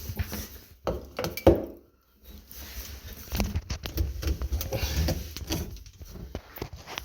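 Irregular knocks, clicks and clatter of objects being handled, with a low rumble of handling noise, loudest about a second and a half in.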